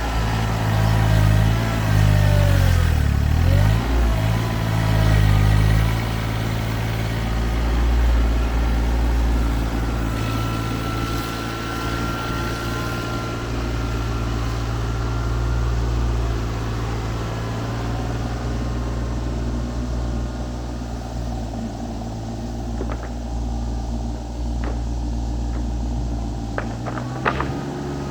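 TYM T25 compact tractor's diesel engine running steadily while it works the backhoe, its pitch dipping for a couple of seconds near the start as it takes load. A thin steady whine sounds for a few seconds in the middle, and a few sharp clicks come near the end.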